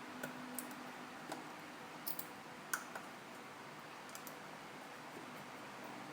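Small repair tools clicking and tapping against an opened iPhone 5's internal parts during reassembly: a scatter of about ten light, sharp clicks in the first four seconds, then only faint hiss.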